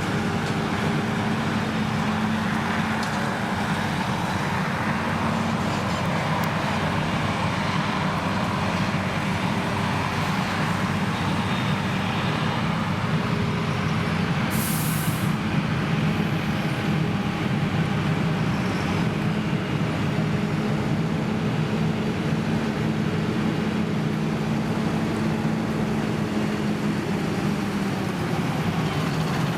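Krone BiG X 1100 self-propelled forage harvester running steadily at full power while chopping triticale, a loud, even machine drone. A short, sharp hiss sounds about halfway through.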